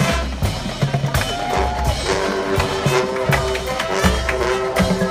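Drum and bugle corps playing its show: low drum hits and percussion strikes over sustained brass and mallet tones, after a held brass chord cuts off at the start.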